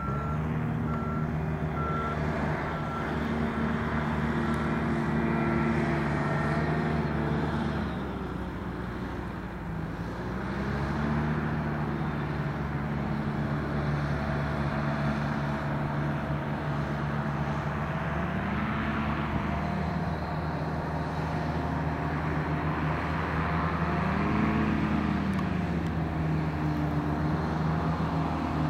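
Powered parachute's engine and propeller running on its landing approach, the pitch easing off about eight seconds in and coming back up, then a few brief rises and falls near the end as the throttle is worked. A steady, evenly repeating beep sounds for the first several seconds.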